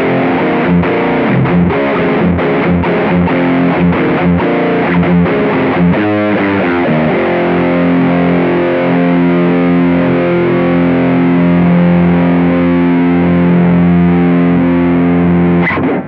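Electric guitar played through a Mooer Cruncher Marshall-style distortion pedal at full gain, tone at noon. A choppy, stop-start riff runs for about six seconds, then a short falling run, then a chord is left ringing until it cuts off at the end.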